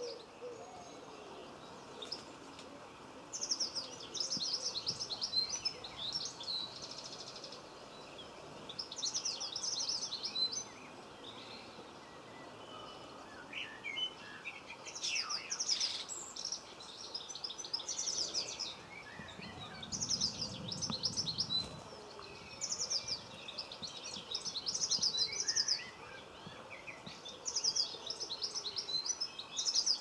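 Small songbird singing short phrases of rapid high notes, each a second or two long, repeated every few seconds with pauses between, over faint steady background noise.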